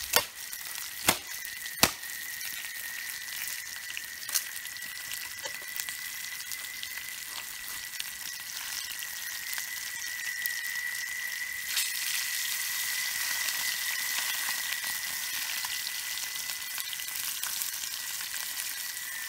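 Small fish frying in hot oil in a metal frying pan over a wood fire: a steady sizzle that grows a little stronger after the middle. Three sharp clicks come in the first two seconds, and a lighter one a few seconds later.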